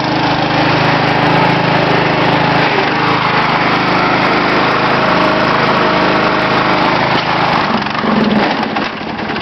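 Riding lawnmower's small engine running steadily under load, its note wavering as it is driven, and changing near the end.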